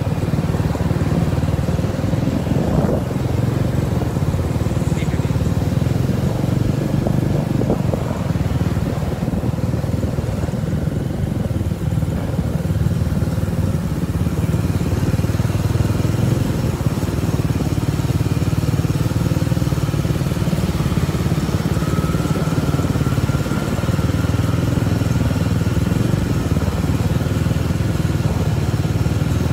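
Motorcycle engines running steadily in a low drone, heard from a moving motorcycle riding in a group of motorbikes.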